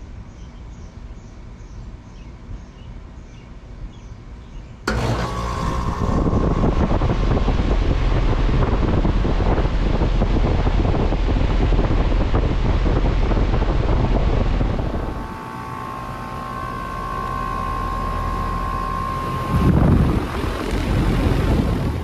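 2015 Lennox Merit Series central air conditioner condenser kicking on suddenly about five seconds in, then running steadily with a loud rush of fan noise over a low rumble. From about two-thirds of the way in it is somewhat quieter, with a steady high whine.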